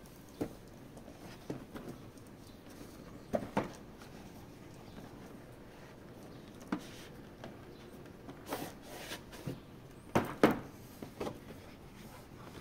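Hands handling a boxed collectible figure and its packaging: scattered taps, clicks and short rustles at irregular intervals, the loudest cluster about ten seconds in.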